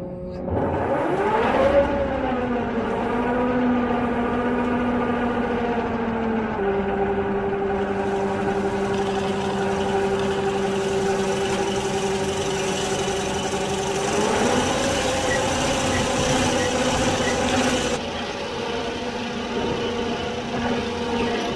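Dry fertilizer spreader and its drive running: a pitched machine whine rises quickly about a second in as it spins up, then holds steady, drops a little about six seconds in and rises again around the middle as the spinner discs throw granules.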